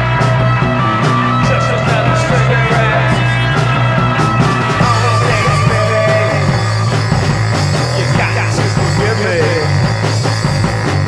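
Punk rock song played by a band of bass guitar, guitar, drums and ARP synth, with a strong, steady bass line underneath.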